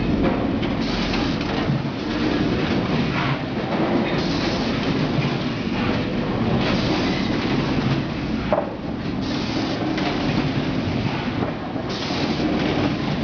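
Net-bag filling and packing machine running, a steady mechanical clatter with a rushing sound that comes and goes every one to three seconds.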